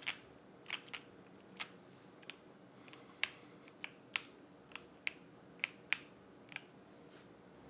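Sun68 gasket-mounted custom mechanical keyboard with a POM plate, lubed Silk Emerald linear switches and GMK keycaps, its keys pressed one at a time, each a short, sharp clack. About fourteen presses come at an uneven one to two a second, then stop about a second before the end.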